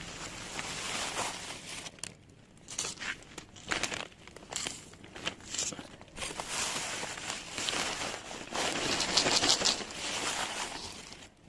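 Plastic packaging crinkling and rustling as it is handled, in uneven bursts, loudest and densest from about six to eleven seconds in.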